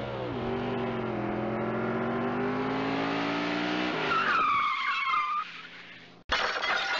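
A car engine revving up and holding, then tyres screeching for about a second, a fade, and a sudden crash with breaking glass near the end: a car-crash sound effect.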